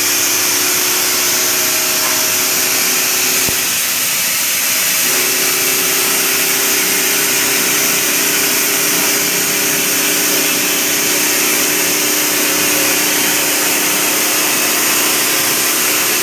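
CNC machine running: a steady, loud hiss with a low two-note hum underneath. A click sounds about three and a half seconds in, and the hum drops out for about a second and a half before returning.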